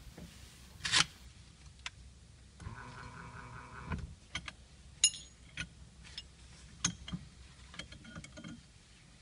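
A small electric motor whirs steadily for about a second and a half, among scattered sharp clicks and knocks, and whirs again briefly near the end.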